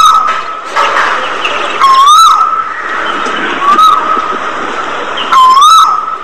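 A flock of budgerigars chattering continuously, with a loud, clear whistle-like call that rises and then holds its note, repeating about every two seconds.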